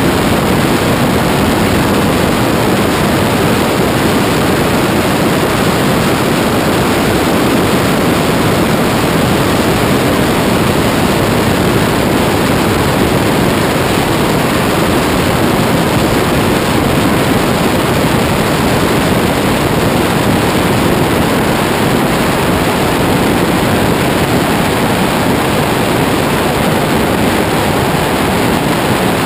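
Steady, loud rush of wind over the microphone of a camera riding on a Twinstar RC model plane in flight. It is an even roar of air with no clear motor tone or changes.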